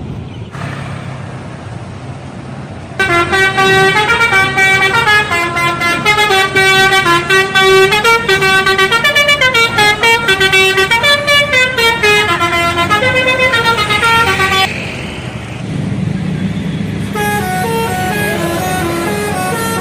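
Indonesian bus telolet horn, a set of horns playing a fast tune of quickly stepping notes, loud for about twelve seconds starting a few seconds in, over the low rumble of a bus engine. After a short break a second, quieter telolet tune plays.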